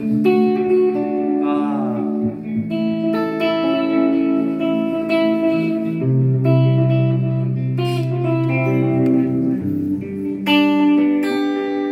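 Electric guitar notes played through a 1969 Watkins Copicat tape echo on its second head setting, overlapping and ringing on as the echo repeats. There is a short downward pitch bend about a second and a half in.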